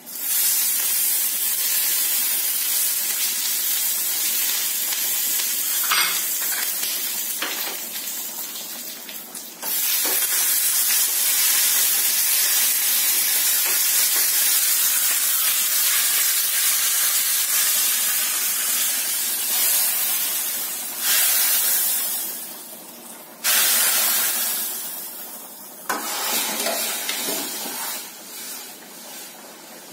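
Curry leaves, mustard seeds and dry red chillies spluttering and sizzling in hot oil, the tempering for a sambar. It is a steady hiss with a short break about ten seconds in, then sudden fresh bursts of sizzling in the last third that die away near the end.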